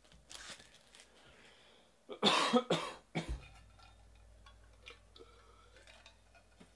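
A man coughing, a short burst of two or three coughs about two seconds in. Faint light clicks and rustles follow.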